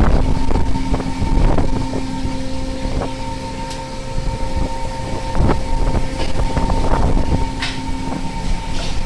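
Steady hum of a longline fishing boat's engine and deck machinery, with wind buffeting the microphone and scattered knocks and clatter.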